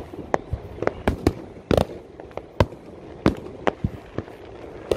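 Fireworks going off all around: about a dozen irregular sharp bangs and pops from aerial shells and firecrackers, some much louder than others.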